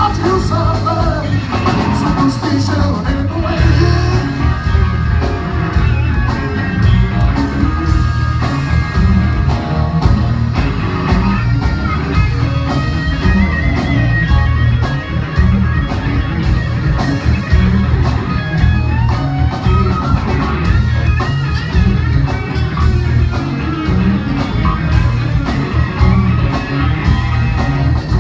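Live rock band playing loud: an electric guitar lead over bass guitar and drum kit.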